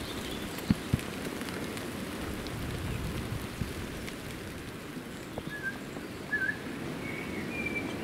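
Steady rain pattering on leaves and a wet surface, with two sharper drop taps about a second in. A few short bird chirps come in the second half, followed by a longer whistled note near the end.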